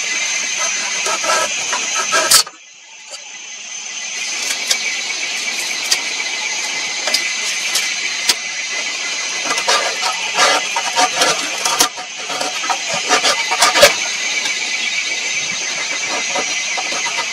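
Knife blade shaving thin curls down a dry wooden stick to make a feather stick: a series of short scraping strokes in quick runs, loudest and densest near the end, over a steady high-pitched hiss.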